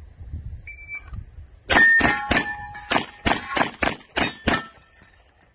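A shot timer gives one short beep, and about a second later a handgun fires a fast string of shots over about three seconds. Steel targets ring with a clang as they are hit.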